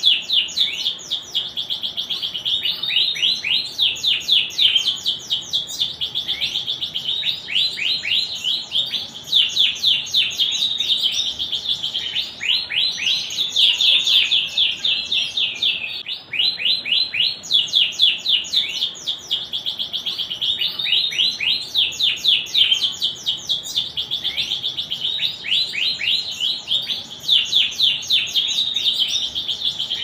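Domestic canary singing a long, near-continuous song of fast trills, rapid runs of repeated falling notes, with only short breaks every few seconds.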